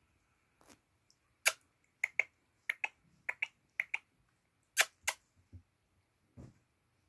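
Black Oriental kitten grooming itself: its tongue licking its fur makes a run of sharp, wet clicks, many in quick pairs, which stop about five seconds in.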